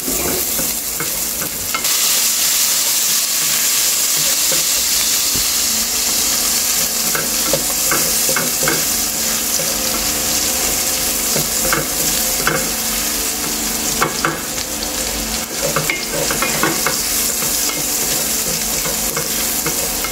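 Garlic and onion sizzling in pan drippings in a stainless steel pan, a steady hiss, with a wooden spatula scraping against the pan bottom again and again as it stirs.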